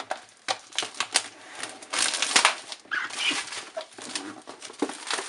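Hands opening a cardboard headphone box: a run of light clicks and taps mixed with scraping and rustling of the cardboard, loudest about two seconds in.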